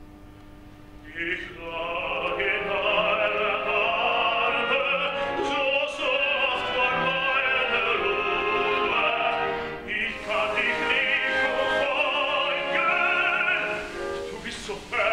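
Operatic tenor singing with a wide vibrato over a soft orchestra. The orchestra plays alone at first; the voice comes in loud about a second in, breaks off briefly about ten seconds in, then carries on.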